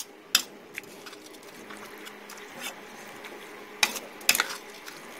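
Metal spatula scraping and striking a wok while stir-frying pounded chillies in oil, over a low steady frying sizzle. A sharp clack comes about half a second in and a quick cluster of them a little before the end.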